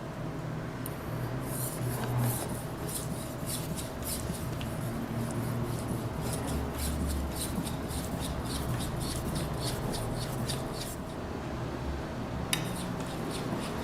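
A carbon-steel Japanese chef knife blade being stroked back and forth on a 3000 grit whetstone, a wet scraping at about two to three strokes a second, pausing briefly near the end before resuming. This is the finer-grit stage that refines the edge after the chip has been ground out.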